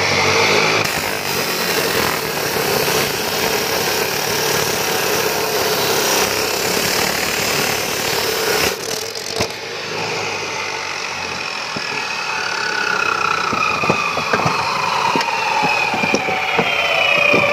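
Electric abrasive cut-off (chop) saw grinding through the steel barrel of a homemade gun for about nine seconds. After that its disc runs on and winds down with a falling whine, with a few short knocks near the end.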